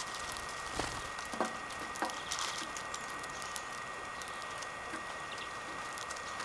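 Greenfinches feeding at a tray of black sunflower seeds: irregular sharp clicks and crackles of beaks cracking seed husks and seeds rattling in the tray.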